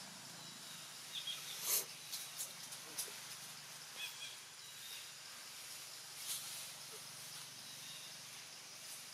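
Faint outdoor ambience: a steady high hiss with a few short, sharp crackles, the loudest about two seconds in.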